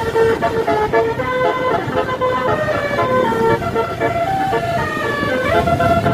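Telolet basuri multi-tone horn of an Indonesian tour bus playing a melody, its notes stepping up and down every fraction of a second, over a low engine and road rumble.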